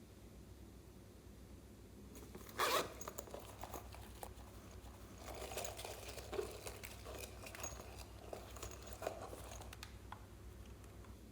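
Slime being worked by hand: a short, loud crackling burst about two and a half seconds in, then scattered small clicks and crackles.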